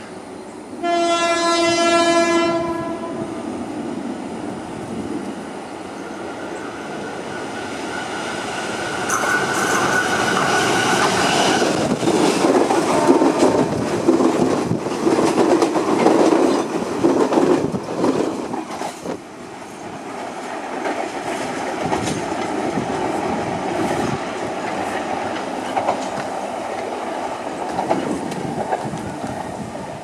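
Sri Lanka Railways diesel train horn: one blast of about two seconds a second in, then a higher horn note about nine seconds in. Then the train passes close, its wheels clattering over the rail joints, and the coaches run on with a steady rumble.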